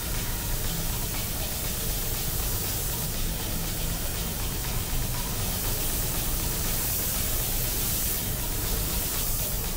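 Compressed-air paint spray gun hissing steadily as clear coat is sprayed onto a car body.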